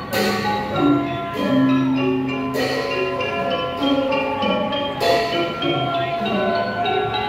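Thai piphat mon ensemble playing: a busy melody of ringing mallet percussion, xylophone and gong-circle, with a few sharp strikes over it.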